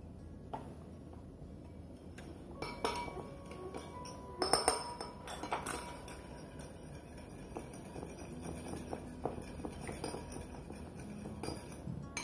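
A metal spoon clinks against a small ceramic bowl as a seasoning is stirred in it. A few sharper, ringing clinks come about four to six seconds in.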